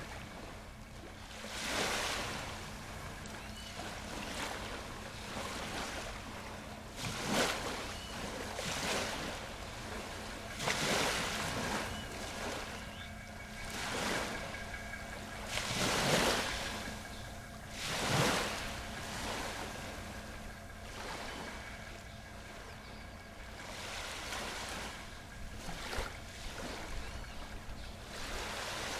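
Sea waves breaking and washing in, a surge every few seconds with the strongest ones about a third and about three fifths of the way through, over a faint steady hum.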